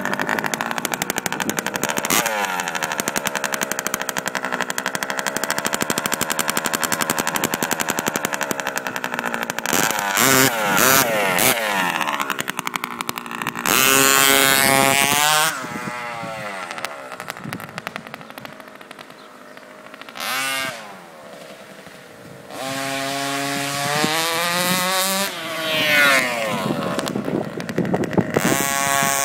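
The small two-stroke petrol engine of an RC truck idles with a rapid stuttering beat for about ten seconds. It then revs up and down in bursts, reaching high revs near the middle and again later, and drops back to a low idle in between.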